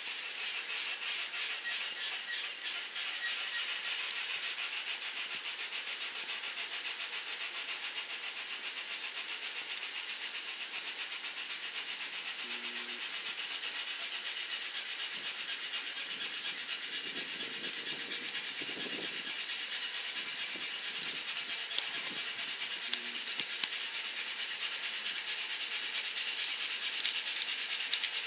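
Wood fire burning in a drum-can wood stove: a steady hiss thick with fine crackles, with a few sharper pops in the second half.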